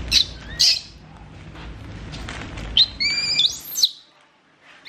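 Baby macaque squealing shrilly while a shirt is pulled onto it: two short squeals at the start, then a run of several high squeals about three seconds in.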